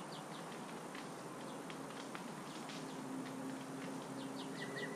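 Faint bird chirps, short and scattered, over steady outdoor background hiss.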